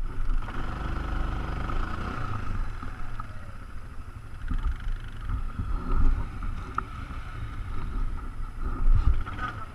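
ATV engine running while riding over dirt trail, with low wind buffeting on the mount-camera's microphone and scattered knocks from bumps, the loudest about nine seconds in.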